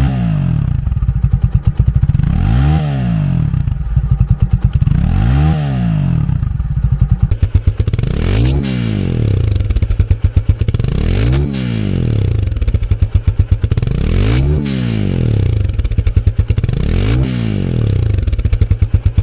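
Italika Z-series motorcycle engine being revved again and again with quick throttle blips, each rev rising and falling back roughly every second and a half. About seven and a half seconds in, the idle note between the revs drops lower.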